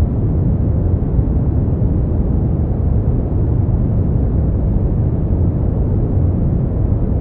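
Brown noise: a steady, deep rumbling hiss with most of its energy in the low end, unchanging throughout.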